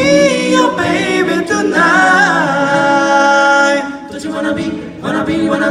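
A vocal group singing a cappella in harmony, the lead voice gliding over steady lower parts. They hold a long chord that breaks off about four seconds in, then sing a short phrase near the end.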